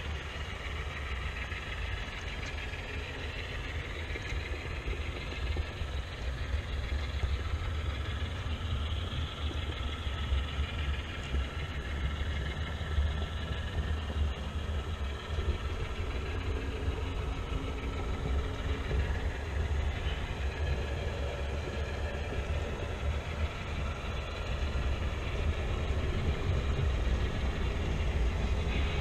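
HO scale model freight train running on the layout's track: a steady rolling rumble of wheels on rails, growing louder near the end.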